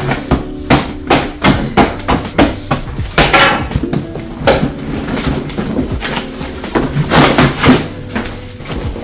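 Cardboard box being stabbed with a knife and torn open by hand: a rapid run of sharp knocks, rips and crumpling of cardboard and packing tape, over background music.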